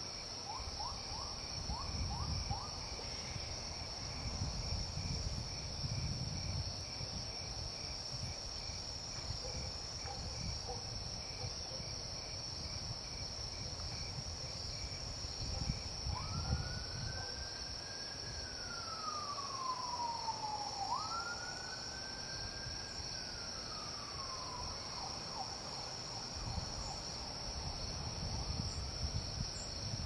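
A steady, high-pitched chorus of crickets runs throughout over a low rumble. About halfway through, a siren wails, rising and falling slowly twice.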